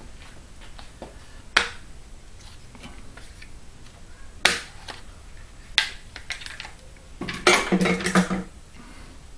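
Small metal parts and hand tools being handled on a workbench: a few separate sharp clinks, then a quick run of clattering clinks near the end.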